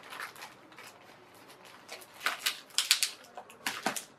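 Clear plastic wrapping crinkling and crackling as fingers pick and pull at it, trying to tear it open by hand. It is faint at first, and a burst of sharp crackles comes in the second half.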